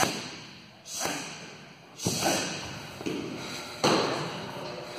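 Gloved strikes landing on Muay Thai pads: four sharp smacks, one to two seconds apart, each trailing off over about a second.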